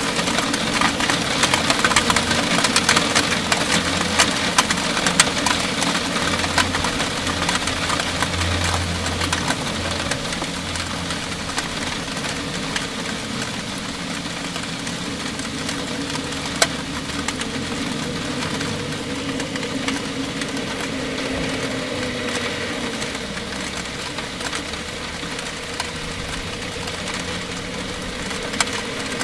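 Heavy rain shower, with dense drops ticking on roof and sill surfaces over a steady rush of rain. It is somewhat heavier in the first ten seconds or so, then eases slightly.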